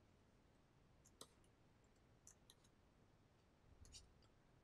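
Near silence: quiet room tone with a few faint, sharp clicks, one about a second in, two more a little after two seconds, and a short cluster near the end.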